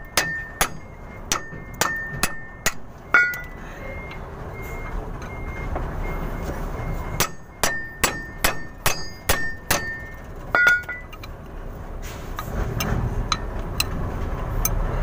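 Hammer blows on a stiff propeller-shaft flange bolt, knocking it loose: two runs of sharp metal-on-metal strikes, each with a short high ring, with a pause of about four seconds between them. A low rumble rises near the end.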